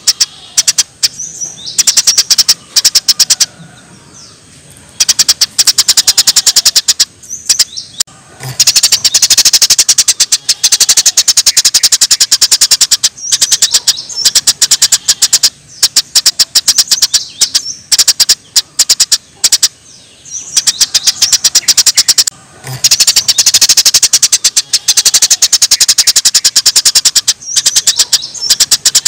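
Small songbird giving rapid-fire 'tembakan' calls: very fast runs of sharp, high-pitched repeated notes lasting a few seconds each, broken by short pauses.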